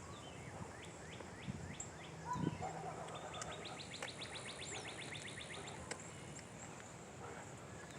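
Several small birds chirping and calling, with short falling chirps and then a fast trill of evenly repeated notes, about seven a second, lasting a couple of seconds in the middle.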